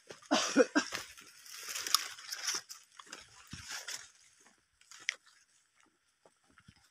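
Crunching and rustling of footsteps through dry fallen oil palm fronds and undergrowth, in bouts that thin out to a few scattered snaps near the end. A brief whine-like voice sound about half a second in is the loudest moment.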